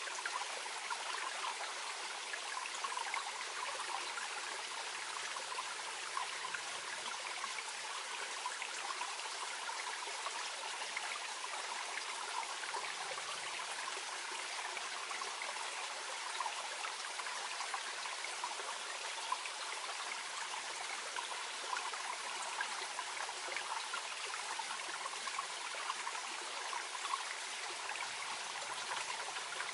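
Small mountain stream flowing gently over stones: a steady babbling and trickling.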